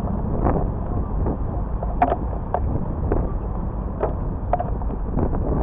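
Busy city street ambience heard from a bicycle among other cyclists: a steady low rumble of traffic and wind on the microphone, with scattered light clicks and knocks from the bikes and riders around.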